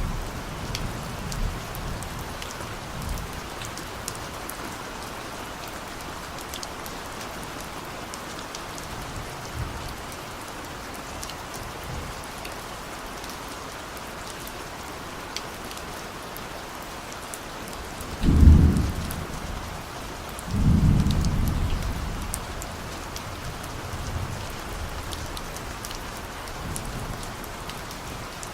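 Steady rain falling, with distant thunder: two low rolling rumbles about two-thirds of the way through, the second longer and dying away slowly.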